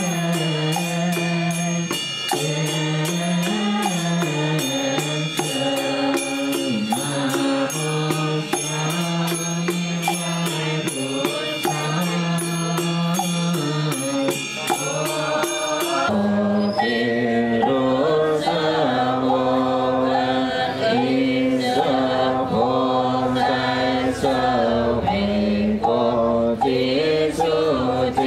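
Buddhist funeral chanting: voices chanting in steady sustained pitches over a regular beat. About halfway through, the sound changes suddenly to a larger group of voices chanting together in unison.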